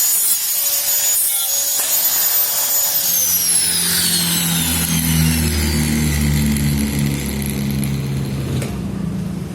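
A power saw running at steady speed, then winding down with a falling whine from about three seconds in.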